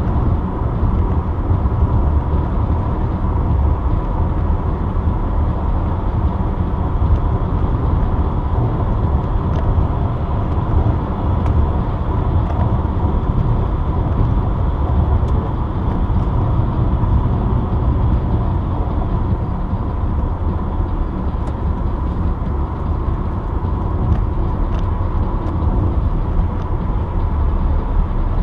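Steady road noise of a car driving at highway speed: low tyre rumble and engine hum, with a faint steady whine.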